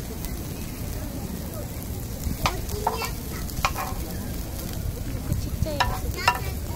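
Beef sizzling in a frying pan on a portable gas burner, while a spoon scrapes the pan and clinks against it and a bowl about five times during serving, the loudest clink near the end.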